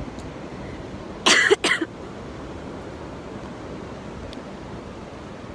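A person coughs twice in quick succession, about a second in, over the steady rush of water pouring over a river weir.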